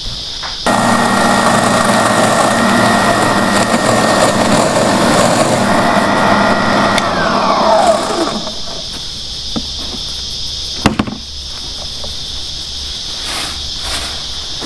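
Ryobi scarifier's electric motor, fitted with a dethatcher cartridge, starts suddenly and runs steadily with its tines raking through the lawn for about six seconds, then winds down with a falling whine. A steady high insect chirr runs underneath, and a single sharp knock comes after the motor has stopped.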